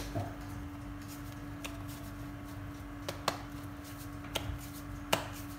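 Hands handling and shaping soft dough balls on a floured granite counter: a handful of short, soft taps and pats scattered through, over a faint steady hum.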